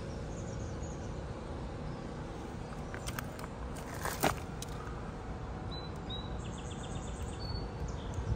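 Outdoor ambience: a steady background rush with small birds chirping now and then, and a few sharp clicks about three to four seconds in.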